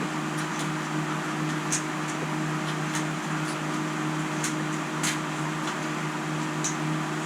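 Steady machine hum with a low, even drone, and scattered light clicks and ticks from small parts being handled.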